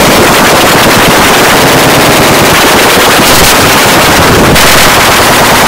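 Loud, heavily distorted noise with a dense, rapid crackling rattle all the way through.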